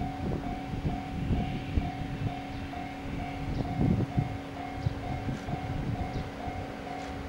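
Railway level-crossing warning bell ringing at about two strikes a second over a steady hum, with a low uneven rumble beneath as the KiYa 97 diesel rail-carrier train approaches in the distance.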